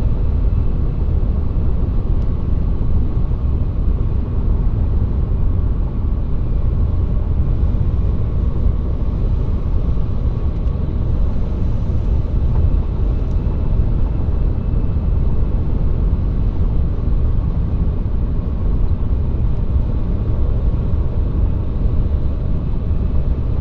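Steady low rumble of engine and road noise inside the cabin of a moving 2014 Chevrolet Cruze Diesel. Its 2.0-litre turbodiesel is running through the pre-regeneration phase, with the exhaust heating up before the diesel particulate filter burn-off starts.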